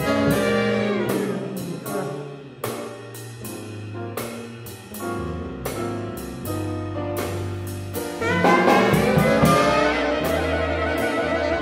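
Jazz big band playing: a horn section of saxophones, trombones and trumpets over piano, upright bass and drum kit, with sharp drum hits punctuating the beat. The full band swells louder about eight seconds in.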